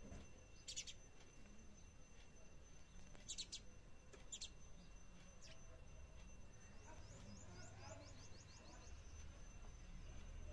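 Sparrows chirping faintly: short bursts of chirps about a second in, again around three and a half and four and a half seconds, then a quick run of about a dozen short falling notes.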